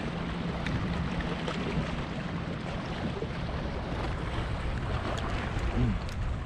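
Steady wind noise on the microphone over open water, with a faint low hum through the first couple of seconds.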